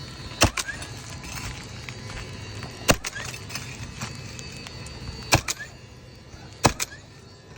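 Four sharp strikes about two and a half seconds apart, each with a smaller knock just after, over a steady low hum: nails being driven to fasten a replacement asphalt shingle.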